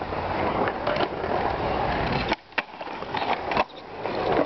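Skateboard wheels rolling on concrete, with a few sharp clacks of the board. The rolling drops out briefly about halfway through.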